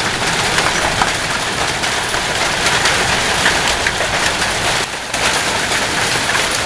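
Heavy hail mixed with rain pelting a wooden deck: a loud, dense, steady clatter of countless small impacts over the hiss of the downpour, dipping briefly about five seconds in.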